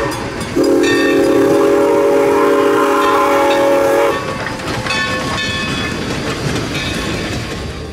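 Train's chime whistle sounding several notes together: one long blast starts about half a second in and cuts off about four seconds in. After it the train's running noise and clatter carry on.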